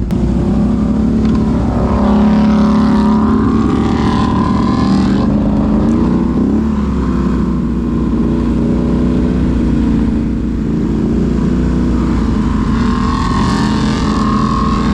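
ATV (four-wheeler) engine running under throttle while riding, its pitch rising and falling a little as the speed changes.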